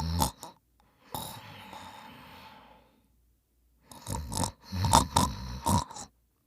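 A person snoring. A loud snore on the in-breath ends just after the start, then comes a softer breathy out-breath. After a pause of about a second there is a quick run of sharp, sputtering strokes lasting about two seconds.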